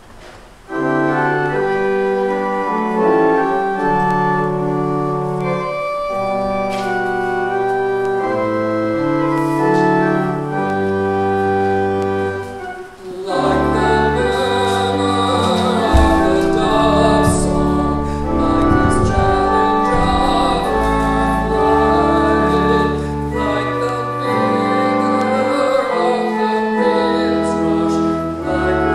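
Church organ playing a hymn in slow, sustained chords, starting about a second in. After a short break about halfway, it starts again with a deeper bass, and a voice sings along.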